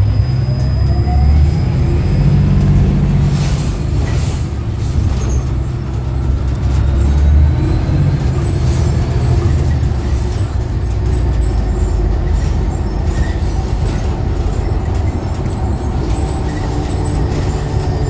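Cabin sound of a New Flyer XDE60 articulated diesel-electric hybrid bus with BAE hybrid drive under way: a steady low drone of the driveline and road, with a faint electric whine that glides in pitch and occasional interior rattles.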